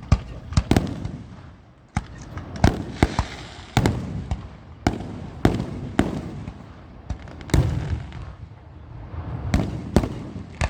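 Aerial fireworks going off: more than a dozen sharp booms at irregular intervals, with crackling after some of the bursts.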